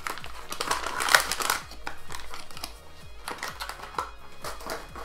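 Plastic packaging crinkling and rustling as 3D printer kit parts are handled and lifted out, loudest about a second in, over background music.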